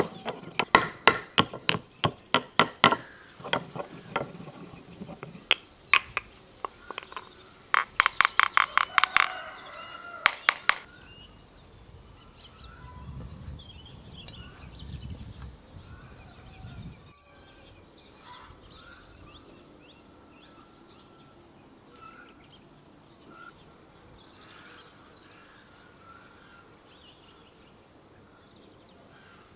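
Pestle pounding in a small mortar: quick sharp knocks, about four a second, in two runs over the first ten seconds or so. Then it goes quieter, with birds chirping faintly and the soft rub of hands working butter into flour in an enamel bowl.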